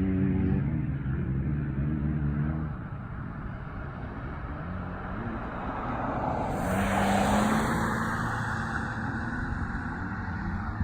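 Dirt-bike engines running on a track: a steady engine note that fades out about a quarter of the way in, then another that comes up and swells about halfway through before easing off.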